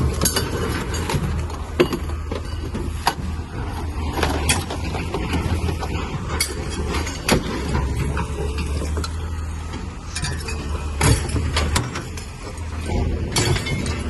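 Scattered metallic clinks and knocks, irregular and sharp, over a steady low engine hum.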